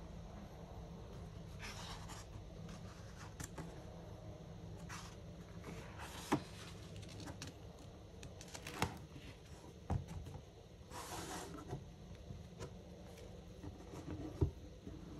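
Hardcover book handled on a wooden table: paper pages swishing as they turn and the book is closed, with a few light knocks, the sharpest near the end.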